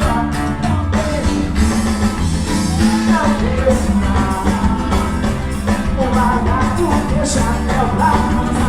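Live Brazilian carnival-style band music with a singer, loud and continuous over a steady bass and drum beat.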